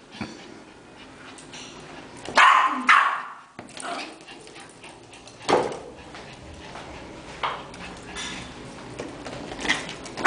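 Small Yorkshire terrier barking in short, sharp barks, a loud pair about two and a half seconds in and single barks every couple of seconds after.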